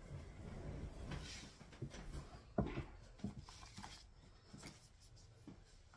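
Shredded paper packing fill rustling and crinkling as hands dig into it and lift out a card and booklet, with a sharp tap about two and a half seconds in and a few lighter taps after it.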